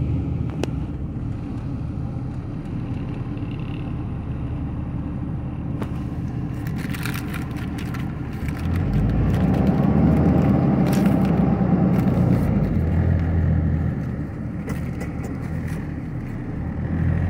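Tow truck engine and road noise heard from inside the cab while driving: a steady low rumble that grows louder for about five seconds in the middle before easing back, with scattered clicks and rattles.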